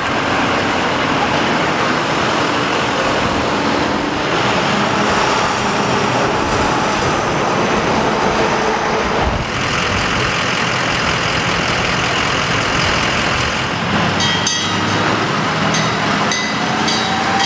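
Steady street noise of traffic and running vehicle engines, with a few sharp clicks and metallic rattles near the end.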